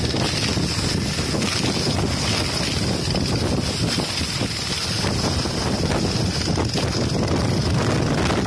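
Snowmobile running steadily at speed, with wind buffeting the microphone.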